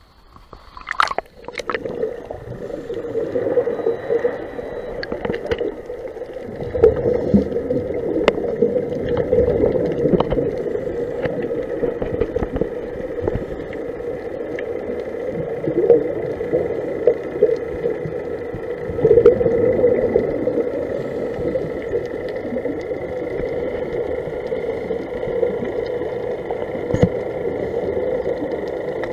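Underwater sound heard through a diving camera's housing: a steady hum, with scuba exhaust bubbles from the regulators surging every few seconds. A few sharp clicks come about a second in, as the camera goes under.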